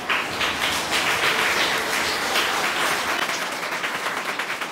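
Audience applauding, many hands clapping together; it starts abruptly and fades a little toward the end.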